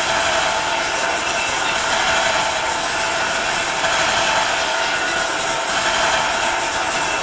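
Live experimental sound performance imitating textile-mill machinery: a steady, dense, grainy mechanical noise with little bass.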